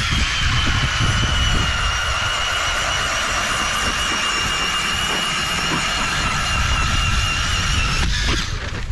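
Power ice auger drilling a hole through lake ice: a steady high motor whine that sags slightly in pitch under load and stops about eight seconds in.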